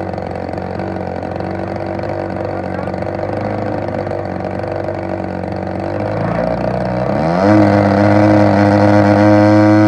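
A DLE 35cc two-stroke gas engine on a radio-control model airplane runs steadily at low speed. About seven seconds in it is throttled up quickly and holds a higher, louder, steady speed. The engine runs well once started; its fault is hard starting.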